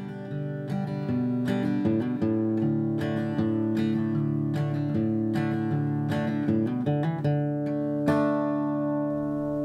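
Acoustic guitar background music, notes picked one after another, then a chord struck about eight seconds in that rings out.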